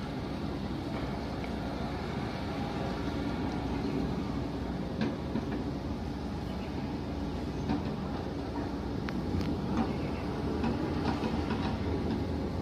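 Excavator's diesel engine running steadily at a construction site, with a few faint knocks from the working machine.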